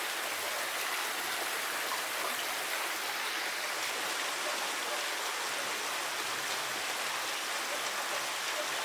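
Steady rushing of running water into a pond, an even hiss with no breaks.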